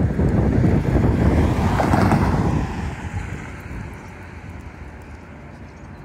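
Low rumble and rapid knocking of a freight train moving away past the crossing, fading sharply about two and a half seconds in, with wind buffeting the microphone.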